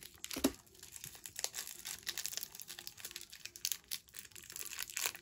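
Plastic candy wrapper crinkling and tearing as it is worked open by hand, with one louder knock about half a second in.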